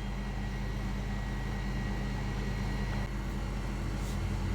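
Steady low mechanical hum, even in level throughout, with no distinct events.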